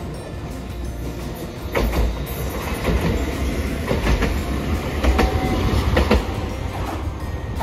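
Hiroden Green Mover APEX (5200 series) low-floor tram passing close by: a loud low rumble with sharp wheel clacks about once a second as its bogies cross rail joints.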